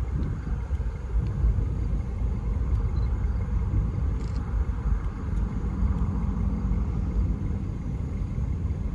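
Low, steady rumble of a diesel freight locomotive approaching from a distance, mixed with wind buffeting the microphone.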